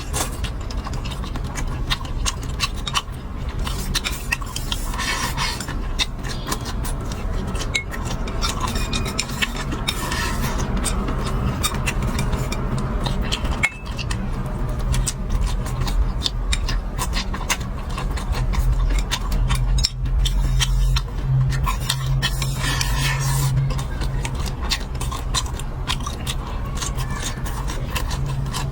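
Close-miked eating sounds: many small clicks and scrapes of utensils on dishes, with chewing, over a steady low hum.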